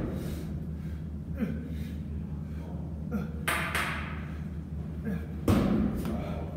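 A man breathing hard through pull-ups on a bar, with two loud, sharp exhales, and a thump about five and a half seconds in as he drops from the bar onto a box. A steady low hum runs underneath.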